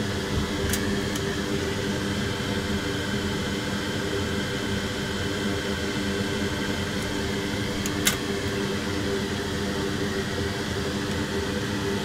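Steady whir of an electric fan or blower at the workbench, with a low hum, broken by two sharp clicks, one about a second in and one about eight seconds in.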